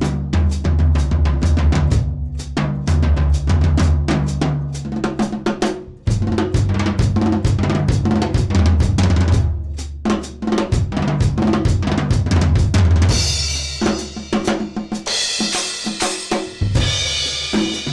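Drum kit played solo with sticks: fast runs of strokes across the snare and toms over the bass drum, then cymbal crashes ringing out from about two-thirds of the way through.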